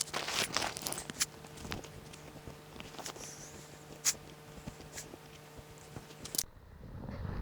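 Scattered crunches and sharp clicks of snow and gear being handled, over a faint steady hum. About six seconds in the sound cuts off abruptly and gives way to a soft wind noise.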